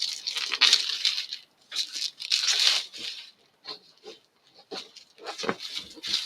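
Plastic wrap being torn and peeled off a cardboard game box: crinkling, tearing bursts for the first few seconds, then scattered lighter crackles and taps as it is worked free.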